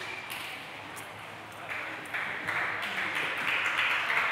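Spectators applauding in a large hall, starting a little under halfway through and growing louder. Before the applause there are only a few faint sharp ticks.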